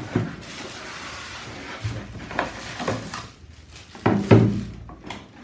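Cardboard packing being handled and pulled open: rustling and scraping, with a few light knocks and a louder thump about four seconds in.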